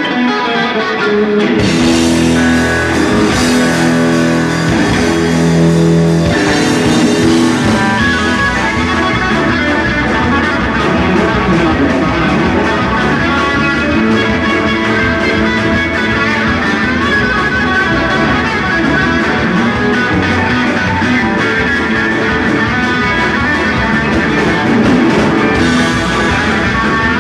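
Live boogie rock band: electric guitars, bass guitar and drum kit. For about the first six seconds the band holds long notes, then the drums come back in and the band plays on at full drive.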